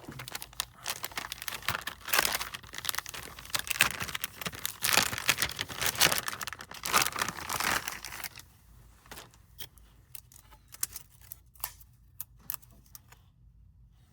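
Crinkling and rustling with many small clicks as a laptop motherboard and its plastic packaging are handled, busy for about eight seconds, then dropping to a few scattered light clicks and taps.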